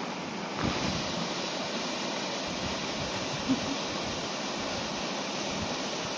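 Small waterfalls on a rocky mountain burn, with water rushing steadily over the rock steps.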